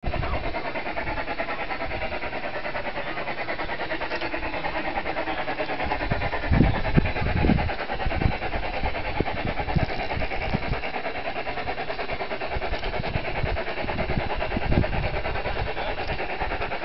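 A model steam locomotive chuffing in a fast, even rhythm as it hauls a freight train, with a few low thumps in the middle and near the end.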